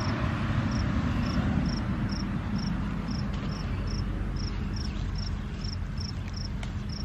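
A cricket chirping evenly, a little over two short high chirps a second, over a steady low rumble.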